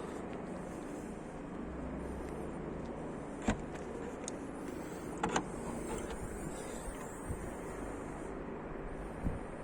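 Skoda Rapid Spaceback's TSI petrol engine running steadily, with a few light clicks in the middle and a short knock near the end.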